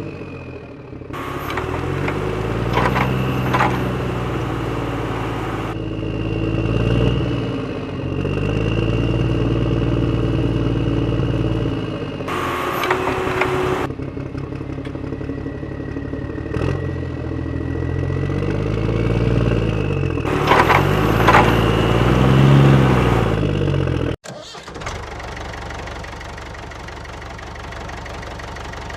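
A vehicle engine revving up and falling back several times, with stretches of hissing, clattering noise over it. About 24 seconds in the sound cuts off abruptly and gives way to a steady idle.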